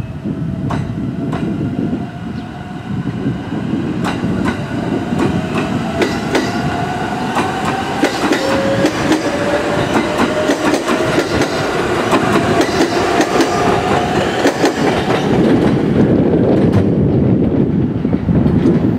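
Echigo Tokimeki Railway ET127 series electric train pulling away, its traction motors giving a rising whine as it picks up speed, with clickety-clack of the wheels over rail joints. Near the end the whine and clicks fade and only a low rumble is left.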